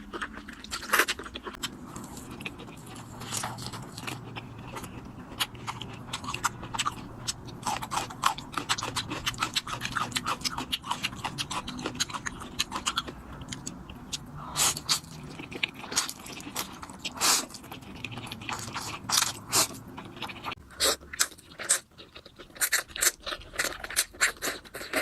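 Close-miked eating of Korean noodles in spicy sauce: wet chewing and mouth smacks, a dense run of sharp clicks throughout.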